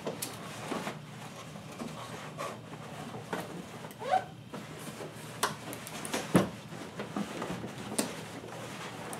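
Packing bag rustling as it is pulled down off a 3D printer, with scattered knocks as the printer is shifted on the desk, the loudest a thump about six and a half seconds in.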